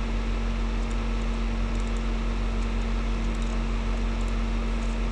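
Steady electrical hum with a constant hiss underneath, the background noise of the recording, with no other sound standing out.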